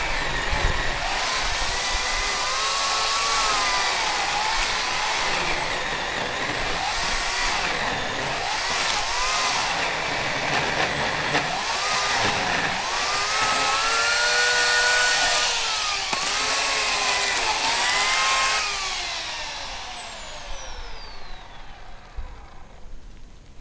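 Electric chainsaw with an 18-inch bar cutting through a silver maple trunk, its motor whine repeatedly dipping in pitch and recovering as the chain bites into the wood. About 18 seconds in, the motor is let off and winds down with a steadily falling whine.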